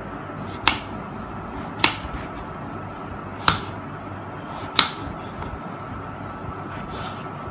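Kitchen knife slicing a peeled potato into finger chips on a wooden chopping board, the blade knocking sharply against the board four times, a second or so apart, over a steady background hum.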